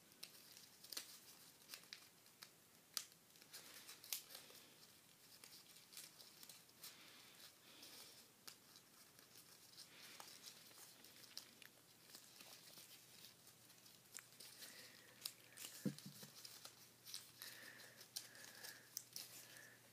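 Faint crinkling and rustling of a paper sheet being folded and creased by hand, in scattered short crackles.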